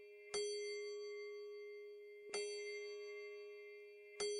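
A clock bell striking the hour: three single strokes about two seconds apart, each a clear bell tone that rings and slowly fades. They are the last strokes of four, marking four o'clock.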